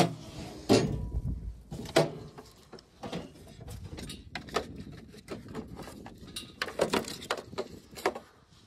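A series of irregular sharp knocks and clanks, about ten over several seconds, with no steady engine sound.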